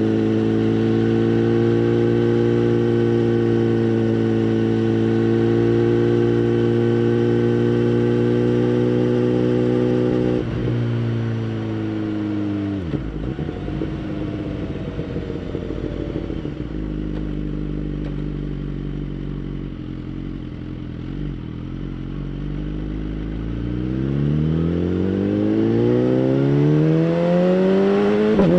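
2011 BMW S1000RR inline-four with a Bodis aftermarket exhaust, heard onboard: the engine holds steady revs for about ten seconds, then the throttle closes and the revs fall to a low, near-idle level. About five seconds before the end the revs climb steadily again as the bike accelerates.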